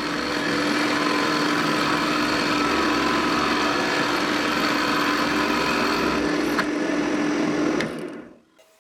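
Drill press running with a ball-forming bead drill bit cutting into wood: a steady hum with dense cutting noise. It winds down and stops near the end.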